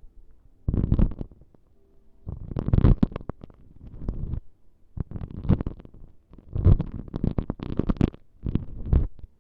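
Close-miked ASMR prop sounds: about five bursts of crackly scratching and rubbing right against the microphone, each with a deep rumble and separated by short pauses.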